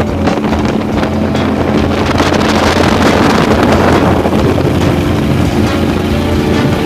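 Motorboat running at speed, with water spray rushing from its wake and wind buffeting the microphone. The rush is loudest in the middle.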